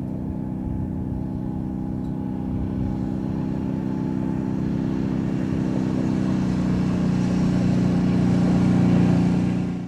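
ATV engines running at a steady pitch as the quads ride closer over a dirt trail, the sound growing slowly louder.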